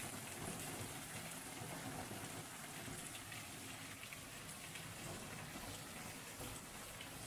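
Heavy cloudburst rain falling on a waterlogged yard: a steady, even hiss, with scattered drops splashing close by.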